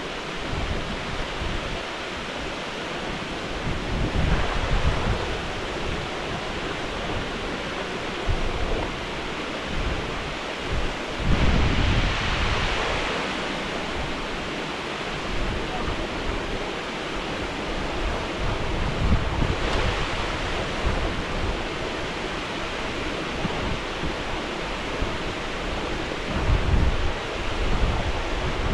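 Water rushing steadily over a river weir, with wind buffeting the microphone. The rush swells louder briefly a few times.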